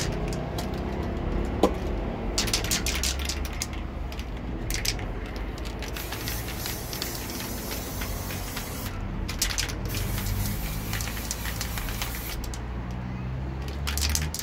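Aerosol can of bumper paint spraying in repeated bursts of hiss, some short and two lasting a few seconds, as black paint goes onto a plastic top case. A low steady rumble runs underneath.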